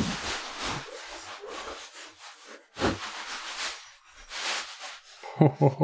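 A taped cardboard box and plastic packaging being cut open and handled, giving irregular rustling and scraping, with a sharper crackle a little before three seconds in.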